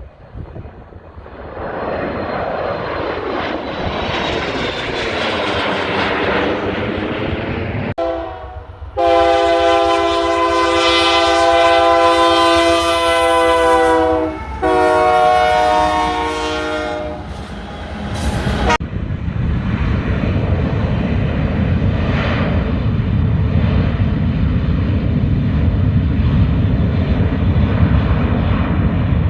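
A train approaching with a rising noise, then its horn sounding a chord of several tones, one blast of about five seconds, a short break, and a second blast of about two and a half seconds. The train then runs steadily past.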